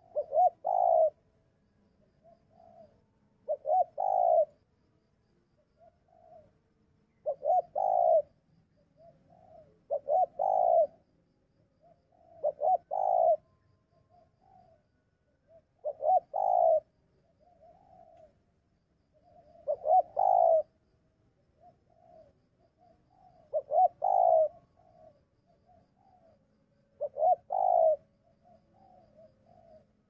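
Spotted dove cooing: a short multi-note coo phrase repeated nine times, about every three and a half seconds, with softer short notes between the phrases.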